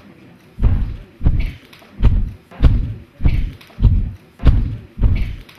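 Heavy stomping footsteps of a large, dinosaur-tailed cartoon creature: evenly spaced deep thuds, about eight in a row at a little over one and a half per second, some with a scrape on top.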